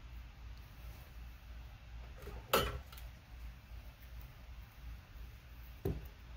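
Tools and parts handled on a wooden tabletop: a sharp knock about two and a half seconds in, and a softer one near the end, over a low steady hum.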